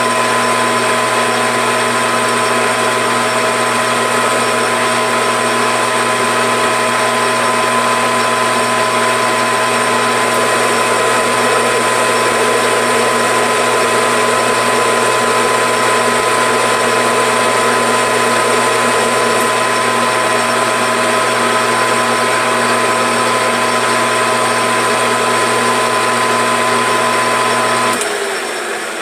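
Metal lathe, a Grizzly G4003G, running under power with a steady gear and motor whine while a carbide insert takes a turning cut along the end of a Ruger 10/22 rifle barrel, reducing it toward half an inch diameter. Near the end the lathe is switched off and the whine stops suddenly.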